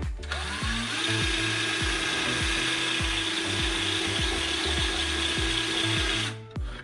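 Handheld cordless power tool spinning up and then cutting into hard plastic console trim, a steady high grinding hiss that stops shortly before the end.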